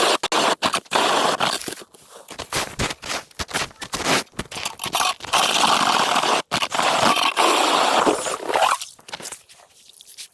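Scraping and crunching of ice and snow in irregular stretches, loudest near the start and again past the middle, and fading near the end.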